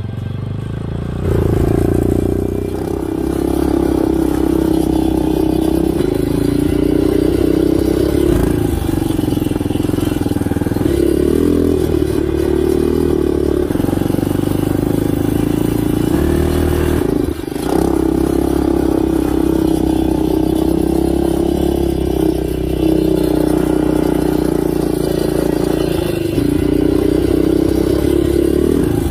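Small ATV engine running close up under throttle, its note holding fairly steady with small rises and falls. About two-thirds of the way through it drops off briefly and then picks up again.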